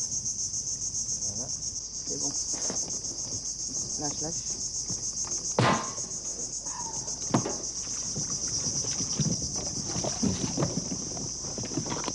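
A high-pitched insect chorus buzzes steadily, pulsing at about six beats a second, with scattered knocks and rustles underneath; the loudest is a sharp knock about six seconds in.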